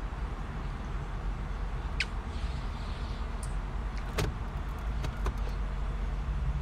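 A car's engine and tyres give a steady low rumble, heard from inside the cabin as it drives slowly. A brief squeak falling in pitch comes about two seconds in, and a few sharp clicks follow near the end.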